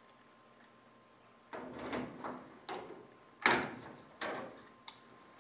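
Metal rivet spacing fan being handled and spread open, its linked strips sliding and clattering. It comes in several short rasping strokes after a quiet first second and a half, the sharpest about three and a half seconds in.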